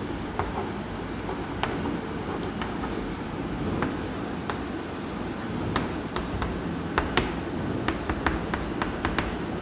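Chalk writing on a chalkboard: scratching strokes punctuated by sharp taps as the chalk strikes the board, the taps coming more often in the second half.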